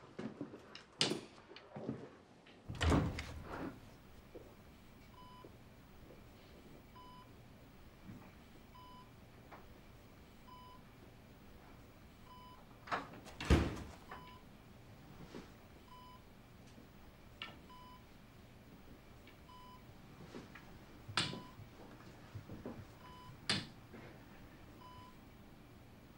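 A bedside patient monitor beeps steadily, one short beep about every two seconds. Hard-soled shoes step slowly over a hospital floor. About halfway through comes a louder knock as a door is handled, and two more heavy steps follow near the end.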